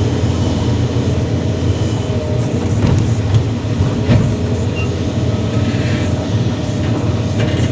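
Kobelco SK330-10 excavator's diesel engine running steadily under working load, with a few knocks and clatter from the machine about three and four seconds in.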